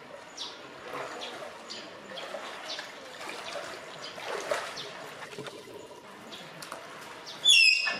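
Malayan tapir giving a short, high-pitched whistling squeal that falls slightly in pitch, near the end. Before it, water sloshing and trickling as the tapir wades through its shallow pool.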